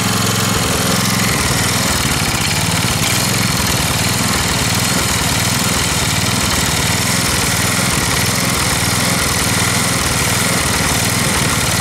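Wolf-Garten Cart garden tractor's engine running. About a second in, its steady note turns rougher and less even.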